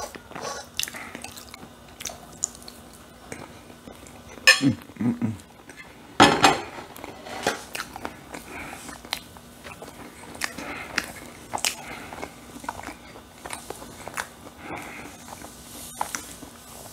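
A person eating shepherd's pie up close: chewing and mouth sounds, a fork clinking on a plate, and a louder clatter of the dish on the table about a third of the way in.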